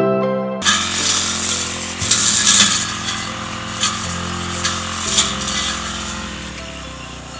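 Two-stroke brush cutter running with a heavy rectangular steel blade, slashing through tall grass with crackling hits, the engine note shifting up and down as it works. It starts abruptly about half a second in. The blade is heavy enough that the owner says it overwhelms his engine.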